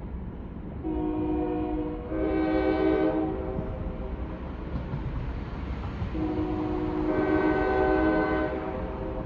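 Distant train horn sounding long chord blasts: two back to back about a second in, then a longer one about six seconds in, over a steady low rumble.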